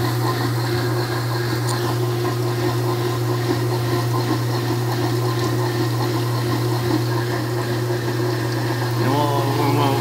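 Scotsman CM3 ice machine filling with water at the start of its clean cycle: a steady low hum with running water.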